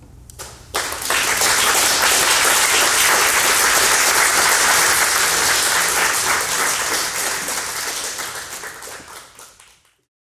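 Audience applauding: a first clap, then full, dense applause that thins out and fades away, cutting off just before the end.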